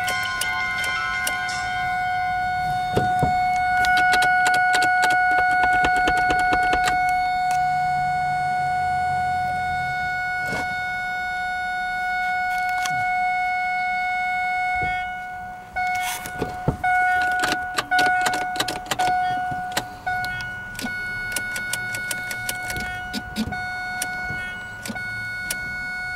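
A 2001 Ford Focus's warning chime sounding as one constant steady tone, with scattered clicks and knocks over it; the tone breaks up briefly about two-thirds of the way through. The chime staying constant with the key turned is the car's no-start fault: it acts as if the key is off.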